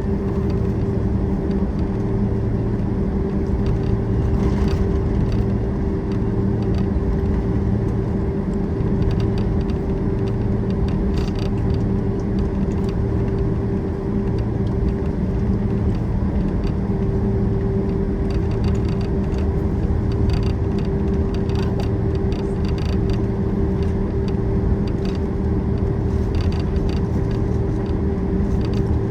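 Cabin noise of a Boeing 767-400ER taxiing: the jet engines at low taxi thrust give a steady rumble with a constant hum and a low throb that pulses about once a second, with faint rattles of cabin fittings over it.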